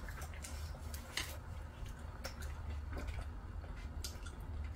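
A few scattered light clicks and taps of eating utensils against food containers, over a steady low hum.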